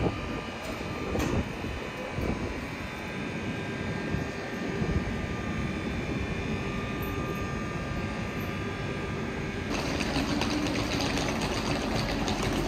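Stationary SNCB electric locomotive humming at the platform, its fans and converters giving a steady whine with a low rumble beneath. Near the end this gives way abruptly to a louder, rougher rush of noise.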